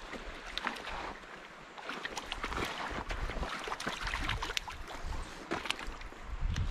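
A hooked trout thrashing at the river surface as it is played in, making repeated short splashes that come thicker and louder from about two seconds in.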